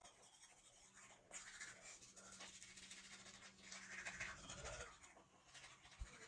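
Faint scrubbing of a toothbrush on teeth, in quick scratchy strokes, with a soft thump near the end.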